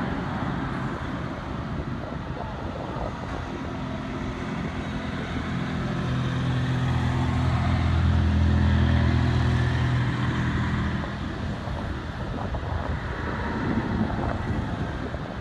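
Motor vehicle engine running nearby over steady background traffic noise. Its low engine hum swells toward the middle and fades away about eleven seconds in, like a vehicle passing.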